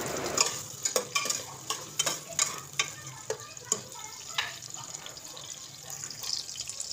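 Sliced onions frying in hot oil in a pot: a low sizzle with irregular sharp crackling pops, thinning out after about four and a half seconds.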